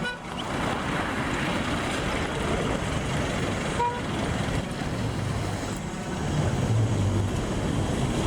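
Road traffic passing: steady tyre and engine noise, with a short toot about four seconds in. A heavier vehicle's engine hum grows louder from about five seconds in.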